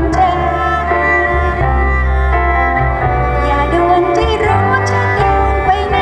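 Live band music: a violin plays the melody over an upright double bass and keyboard, with a few light drum hits.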